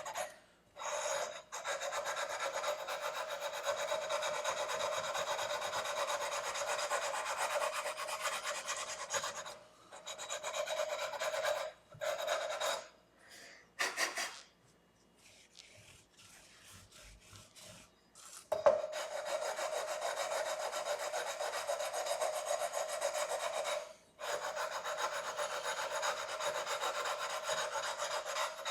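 Sandpaper rubbed in long, steady runs along the metal frets of a 2009 Squier Strat SE, levelling uneven frets before re-crowning. The sanding pauses briefly a few times and stops for about four seconds around the middle.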